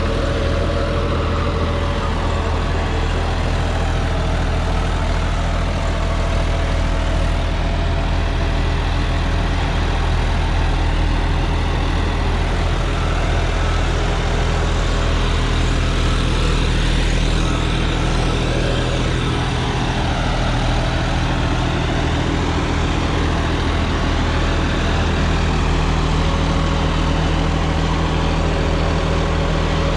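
John Deere 5405 tractor's three-cylinder diesel engine running steadily under load at about 1600 rpm, driving a 10-foot rotavator through the live PTO as it tills soil in second gear.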